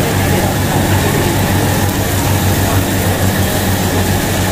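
Steady low machine hum with an even rushing noise over it, unchanging throughout.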